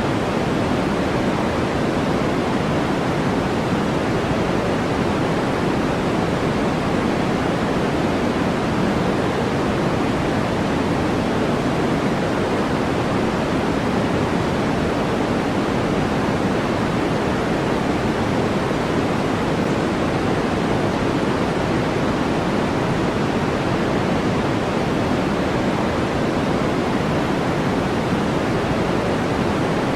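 Steady generated white-noise track: an even, unbroken hiss, fuller in the low-middle than in the highs, with no changes or events.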